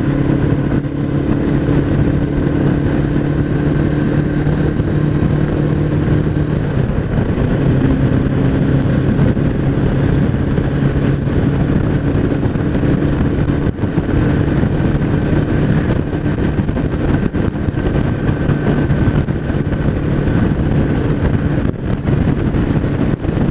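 Suzuki Bandit motorcycle engine running at a steady cruise, heard from the rider's seat. Its note eases slightly about seven seconds in and picks back up around fourteen seconds. It is running smoothly on a new fuel filter, which the rider hopes has cured its earlier juddering and poor throttle response.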